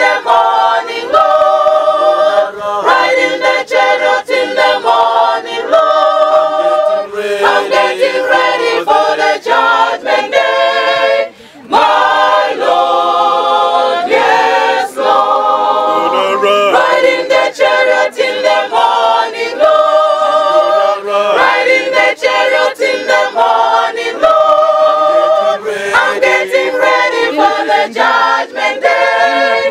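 A mixed choir of men and women singing a cappella, with a short break in the singing about eleven and a half seconds in.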